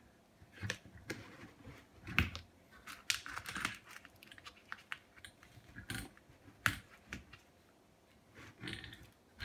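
Sheet of d-c-fix sticky-back plastic with its backing paper rustling and crinkling as it is handled and smoothed on the workbench top, with scattered knocks and clicks at irregular intervals.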